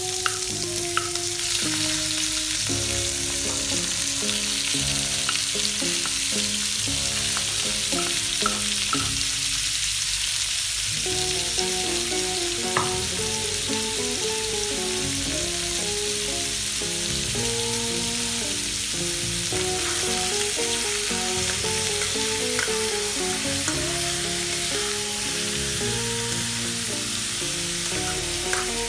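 Chicken innards sizzling steadily as they fry in a hot pan, stirred with a metal spoon near the end. Background music plays along.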